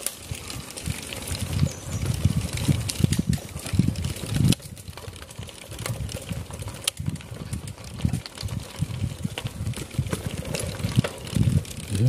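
Wind buffeting the microphone while riding a bicycle: an uneven, gusty rumble with scattered sharp clicks and knocks from the bike.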